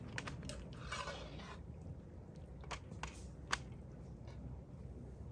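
Faint handling sounds of a hand working in a metal cooking pot: scattered light clicks and a short rustle about a second in, with one sharper click about three and a half seconds in.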